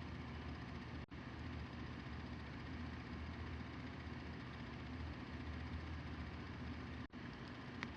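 Steady low background hum with faint hiss: room tone between sentences, briefly cutting out about a second in and again near the end.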